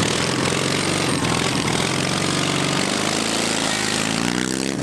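Drag-racing lawnmower's engine running steadily, then revving up with a rising pitch over the last second or so.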